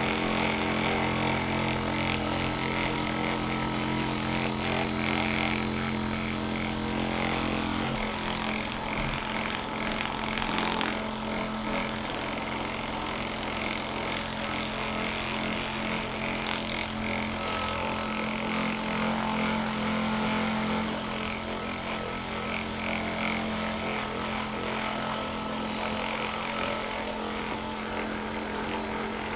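Electric percussion massager running steadily on the sole of a foot, a continuous motor hum whose tone shifts slightly about eight seconds in.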